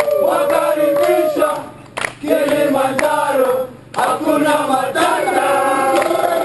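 A group of Kilimanjaro porters singing a Swahili song together, chanted in loud phrases that break off briefly twice, with a sharp clap about two seconds in.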